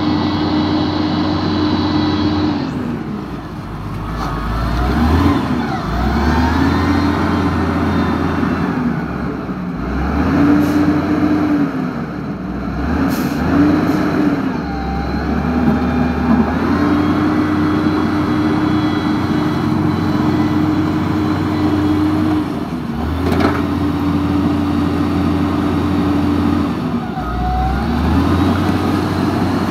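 Electric drive motors and gearboxes of a Huina RC wheel loader whining over a low hum. They start and stop several times, and the pitch glides up and down at each start and stop as the toy drives and works its arms.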